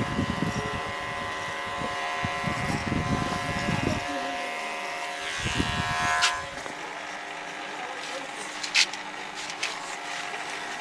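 Electric beard trimmer running with a steady motor whine as it cuts a man's beard. The cutting noise is heavier for the first few seconds and again around five to six seconds in. There are two sharp clicks, one about six seconds in and one near nine seconds.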